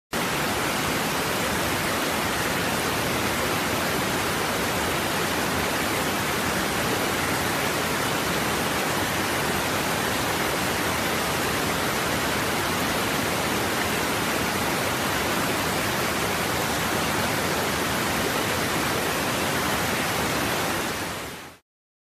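Waterfall pouring steadily over rock ledges, an even rushing noise with no change in level, which fades out quickly near the end.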